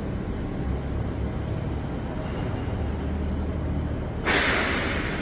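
Factory workshop background: a steady low rumble and hum, broken about four seconds in by a loud hiss lasting about a second.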